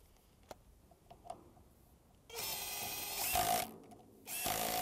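Cordless power driver running in two short bursts, about a second or so each, driving a bolt to fasten a sensor paddle. The motor pitch is steady through each burst.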